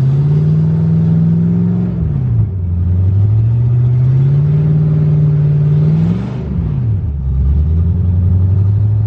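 1992 Camaro engine pulling the car under acceleration, its pitch climbing slowly and then falling sharply twice, about two seconds in and again about six seconds in, before holding steady. The revs climb long before each drop as the failing automatic transmission is slow to get into the next gear.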